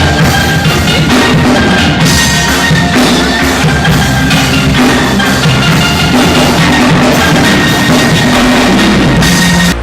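Steel drum band playing an instrumental passage of a pop song: steel pans over drum kit and bass with a steady beat. At the very end the music breaks off suddenly.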